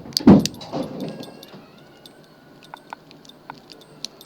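Metal lock and picking tools being handled: a brief clatter at the start, then scattered small clicks and metallic ticks.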